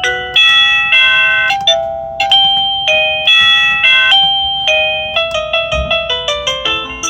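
Kasonic DB201 wireless doorbell receiver playing one of its electronic chime tunes through its speaker: a long melody of bell-like notes, each struck sharply and dying away. The notes come about two a second at first, then quicken to several a second from about five seconds in.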